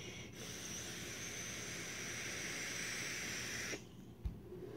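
Vape mod firing ceramic coils in a rebuildable dripping atomizer as a draw is taken: a steady hiss and sizzle of vapour and air pulled through the atomizer. It breaks briefly at the start and cuts off a little before the end, followed by a soft thump.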